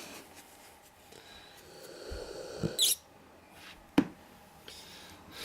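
Neapolitan mastiff snoring in its sleep: one slow snoring breath builds and ends in a short, sharp snort near the middle. About a second later comes a single sharp click.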